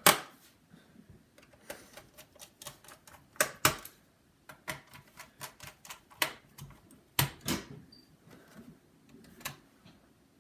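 Irregular clicks and taps of small screws, a precision screwdriver and a plastic laptop panel being handled and fitted, with a few sharper knocks near the start, about three and a half seconds in, and about seven seconds in.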